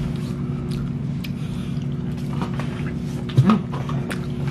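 Light clicks and scrapes of a plastic fork twirling spaghetti on a paper plate, over a steady low hum. A short voiced sound comes about three and a half seconds in.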